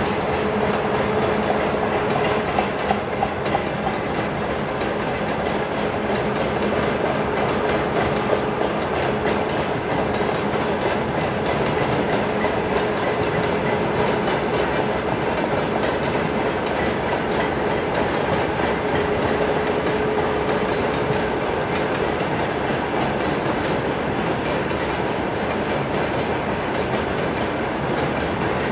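Railway tank wagons of a freight train rolling steadily past, a continuous rumble of wheels on rail with a rhythmic clickety-clack over the rail joints. A faint high steady whine comes and goes, and a few sharper knocks sound about three seconds in.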